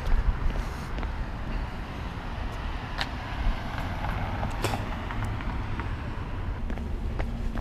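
A car driving past through a city intersection over a steady low rumble, with a few sharp clicks.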